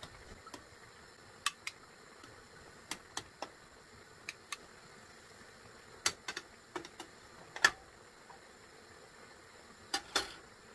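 Light, irregular clicks and taps of a plastic spatula against a ceramic serving dish and a steel steamer pot as steamed leaf-wrapped fish parcels are lifted out, about a dozen knocks spread over several seconds.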